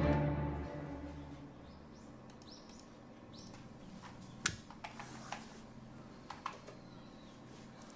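Background music fades out in the first second. A quiet room follows, with a few faint high squeaks and then scattered light clicks and taps, a few a second at most.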